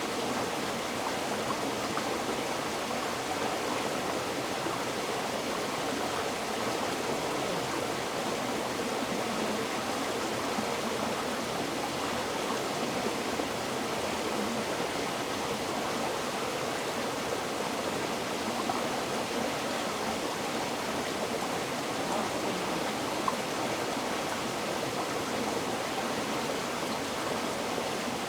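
River water flowing steadily, an even rushing sound without pauses.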